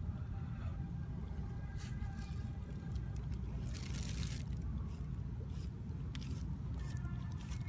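A steady low rumble, with a brief burst of rustling handling noise about four seconds in.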